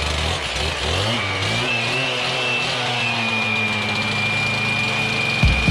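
Echo two-stroke cut-off saw revving up to full throttle in the first second or so, then running at a steady high pitch with a high whine as its blade cuts into a concrete block wall.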